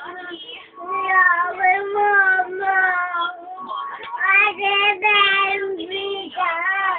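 A young child singing a tune in a string of held notes.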